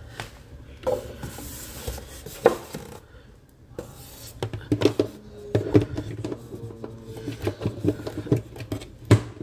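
Handling noise from a Prolink PRO1201SFCU UPS's plastic case being moved and stood upright on polystyrene packing: rubbing and scraping with scattered knocks and clicks, busiest in the second half, the sharpest knock just before the end.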